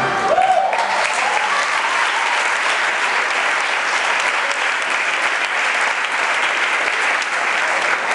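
Audience applauding steadily in a hall, with a brief shout near the start.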